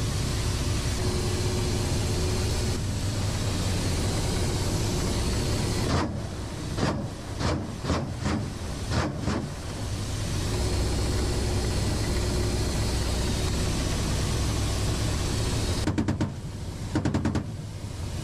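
Steady rotor and turbine noise inside an attack helicopter's cockpit. It is broken by a run of sharp bangs from about six to nine seconds in, and by rapid bursts of gunfire near the end.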